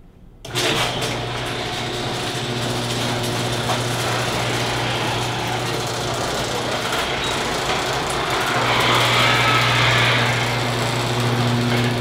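Electric garage door opener motor running as a sectional garage door rolls up, starting about half a second in with a steady hum, a little louder around nine to ten seconds in.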